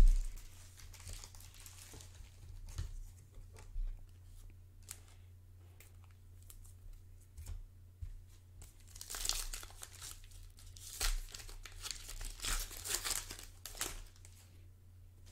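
A sharp thump right at the start, then a plastic trading-card pack wrapper being torn open and crinkled by hand, in scattered crackles at first and then dense crinkling over the last several seconds as the cards are pulled out.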